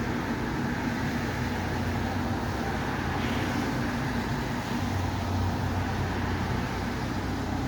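Steady low vehicle rumble with a faint hum under a constant hiss.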